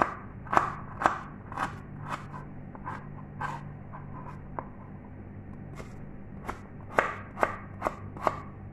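Kitchen knife slicing ginger root on a plastic cutting board: a series of irregular chops, the blade knocking against the board, thinning out in the middle and picking up into a quicker run of chops near the end.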